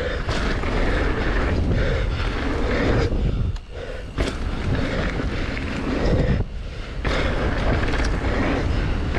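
Wind rushing over a bike-mounted camera's microphone, with mountain-bike tyres rolling on packed dirt. The rush drops away briefly twice, about three and a half and six and a half seconds in, as the bike leaves the ground over dirt jumps.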